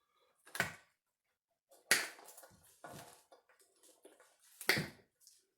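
Cutters snipping through wires of a Subaru EJ22 wiring harness to chop off the steering column plugs: four sharp snips a second or so apart, with lighter rustling of the harness between them.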